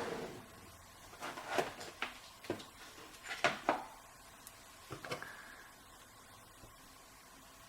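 Small clicks and taps from handling the parts of a disassembled Schlage Everest lock cylinder, a loose cluster of them through the first five or so seconds, the loudest pair about three and a half seconds in.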